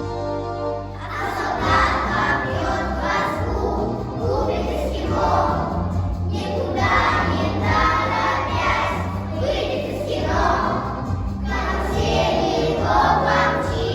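A children's choir singing a song in phrases over instrumental accompaniment with a steady bass.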